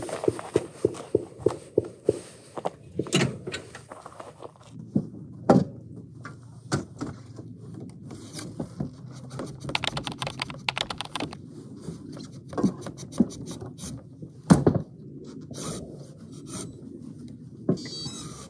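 Packing-up handling noise at the back of a truck camper: a quick run of clicks at the start, like a ratchet strap being cranked tight, then scattered thunks and scrapes as gear on the rear cargo carrier is handled.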